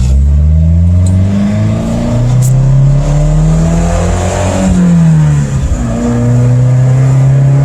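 1989 Mazda B2200 pickup's 2.2-litre four-cylinder engine pulling hard under acceleration, loud through an exhaust that needs repair. The revs climb, drop sharply with a manual gear change about halfway through, then climb again in the next gear.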